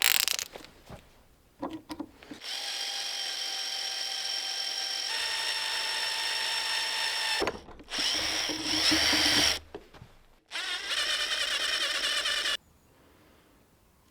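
Handheld power drill running under load in three separate runs with short gaps, giving a steady whine; its pitch steps up partway through the first run. A few short knocks and clatter come before it.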